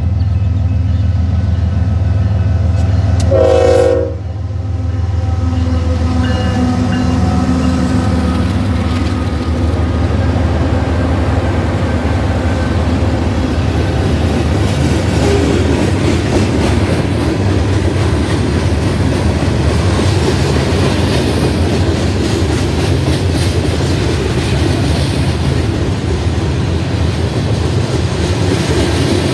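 Union Pacific freight train passing close. The lead diesel locomotives run with a deep drone and give a short horn blast that cuts off about four seconds in. Then the locomotives and a long string of covered hopper cars roll by with steady wheel clatter on the rails.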